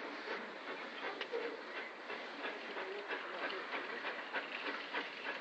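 Steam locomotive working as it approaches, its exhaust beating in a quick run of short chuffs over a constant noisy hiss.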